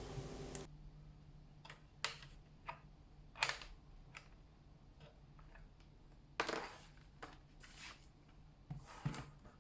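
Faint handling noises: a scattered series of light clicks and knocks with a few short rubbing rustles as small objects are picked up and moved.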